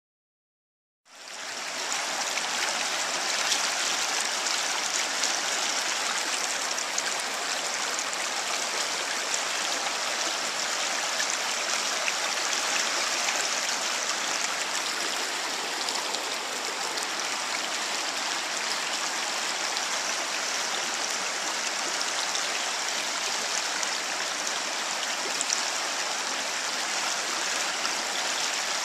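River water rushing over rocks in shallow rapids: a steady hiss of flowing water that begins about a second in.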